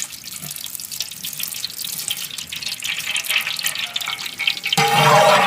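Wood-pressed coconut oil being poured into a cooking pot: a steady liquid pour that grows louder. Music comes in near the end.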